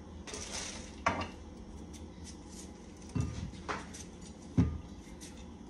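Potatoes being peeled by hand over a stainless steel sink: light scraping strokes, with a few sharp knocks and clatters of the peeling blade or potato against the metal sink.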